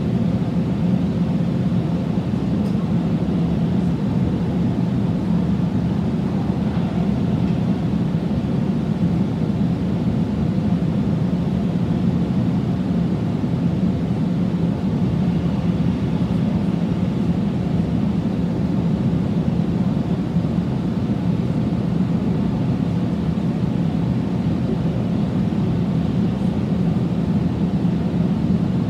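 A Sydney Trains Millennium (M set) electric double-deck train heard from inside the carriage while under way: a steady low rumble of wheels and running gear. A faint steady tone sits above it and fades out a few seconds in.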